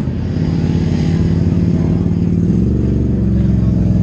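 Side-by-side UTV engine running steadily and loud while the machine works through a deep mud pit, with a slight change in pitch about two and a half seconds in.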